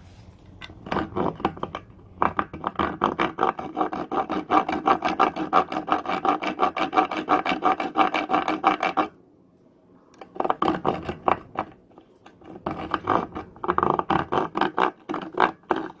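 Coarse-toothed saw edge of a flat metal survival multi-tool card, pulled back and forth on wire handles, rasping into a wooden board in quick strokes. The sawing comes in three runs, with a pause of about a second around the middle and a shorter one a little later.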